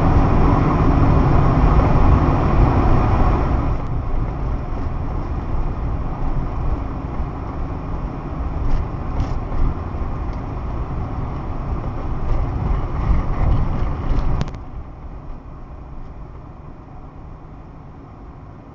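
Steady road and tyre noise from a moving car. It is loud at first, steps down about four seconds in, and drops sharply again about fourteen seconds in, with a few scattered clicks in between.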